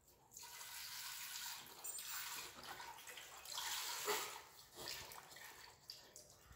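Chicken stock pouring from a carton into the stainless steel inner pot of an Instant Pot, a splashing stream in uneven surges that thins out near the end as the carton empties.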